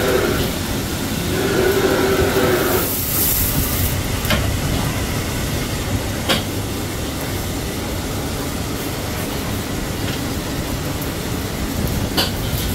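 Steady roar of a roasting pit's fire under a suckling pig on a long fork, with a few sharp pops at about four, six and twelve seconds in.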